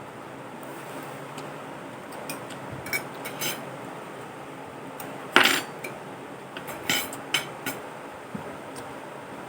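Eating utensils clinking and scraping against a plate: a string of short sharp clinks, the loudest about halfway through, with a quick cluster soon after.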